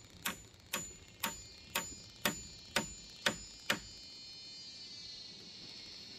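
Rhythmic knocks of a tool striking bamboo, about two a second, eight strokes in all, each with a short metallic ring, stopping about four seconds in. A steady high buzz follows.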